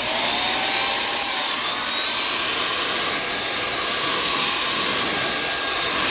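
Electric paint sprayer running and spraying thinned chalk paint: a loud, steady blowing hiss. It comes up at the start with a faint rising whine as the motor spins up.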